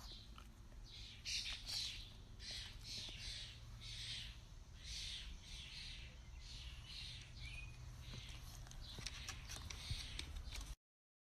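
A pug's quick snuffling breaths, fairly faint, roughly two a second, until the sound cuts off near the end.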